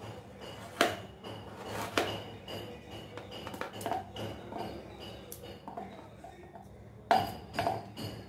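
Small kitchen knife slicing pieces off a raw carrot held in the hand, giving a run of crisp clicks and snaps. The loudest come about a second in, two seconds in, and twice about seven seconds in.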